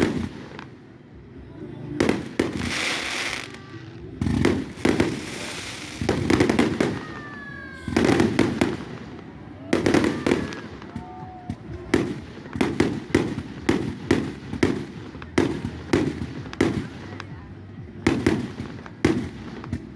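Aerial fireworks going off: sharp bangs with crackling bursts between them and a brief whistling glide, then from about halfway a steady run of shots, roughly two bangs a second, like a firework cake firing.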